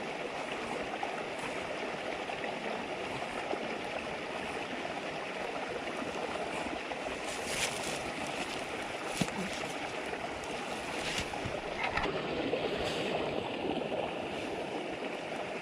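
River babbling steadily, with a few sharp crackles from the campfire scattered through the middle.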